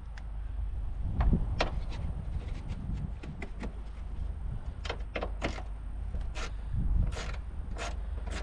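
Irregular clicks and knocks from metal being handled while working on a van, over a steady low rumble.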